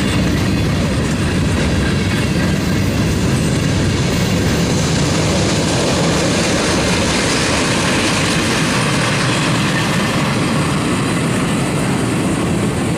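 Freight train's boxcars rolling past at close range: a steady, loud noise of steel wheels running on rail. The end of the train passes near the end.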